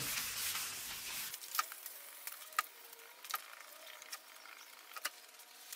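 Hand wet-sanding of 2K primer on a car panel with 800-grit paper on a sanding block: a steady rubbing for about the first second, then fainter, with a few scattered light clicks.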